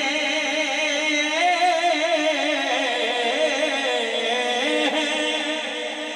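Male voice singing a long, wavering melismatic note of an Urdu hamd over a steady low drone, easing off slightly near the end.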